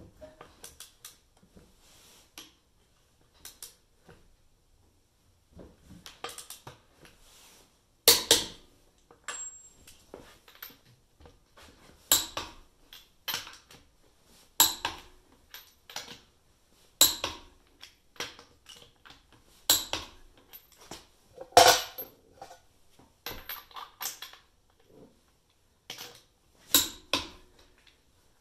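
A torque wrench and socket on a wheel's lug nuts as the nuts are tightened to final torque. Light metal clinks and ratcheting at first, then from about eight seconds in a sharp metallic click every two to three seconds, one as each nut reaches its setting.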